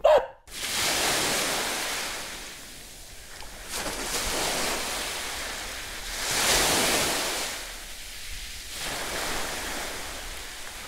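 Waves washing onto a shore, a rushing surge that swells and falls back about every three seconds.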